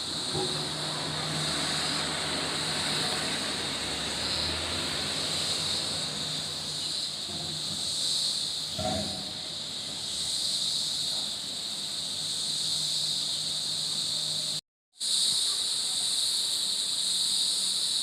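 A steady, high-pitched chorus of forest insects over a faint low hum. It cuts out completely for a split second about three-quarters of the way through.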